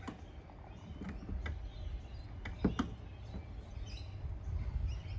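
Plastic kayak hull knocking and scraping against a Rhino side loader bar and roof rack as it is lifted and slid into place: a few scattered knocks, the sharpest two close together about two and a half seconds in, over a low steady rumble.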